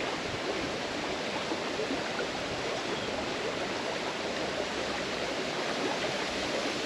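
Steady rush of a shallow creek running over a gravel bed.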